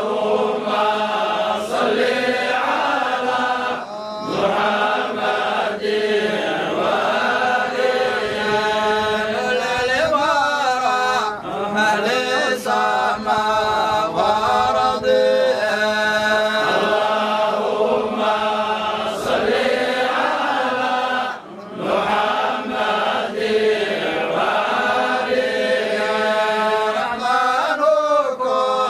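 A group of men chanting Arabic devotional verses together in long, sustained melodic phrases, with short breaks about four seconds in and again a little past twenty seconds.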